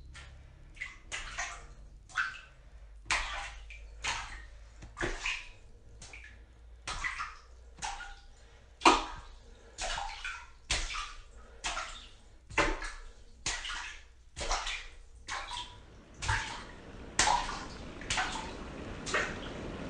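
A bare foot splashing and stirring shallow river water over pebbles, with a splash about every second.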